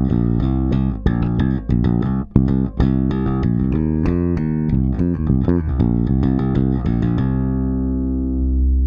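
Spector NS Pulse five-string electric bass played fingerstyle through its active preamp, with both boost-type EQ knobs at minimum for its flat tone. A busy run of plucked notes gives way about seven seconds in to one low note left ringing.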